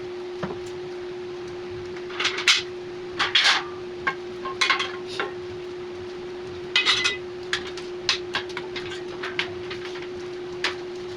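Steel storage-rack parts clinking and clanking as they are handled and fitted together: irregular metallic knocks, a few with a short ring. A steady hum runs underneath.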